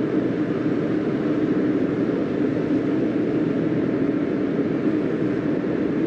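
Portable forced-air heater running, a steady, even rush of fan and burner noise.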